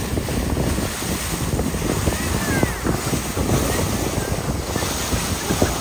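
Wind buffeting the microphone on a moving boat at sea, over the rush of water around the hull and the boat's running noise.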